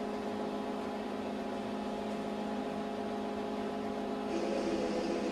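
Steady hum made of a few held tones over low hiss, growing slightly louder with more hiss near the end.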